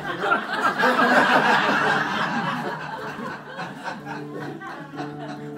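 An audience laughing and chuckling, loudest in the first two seconds and dying away. About four seconds in, an accordion starts a steady held chord.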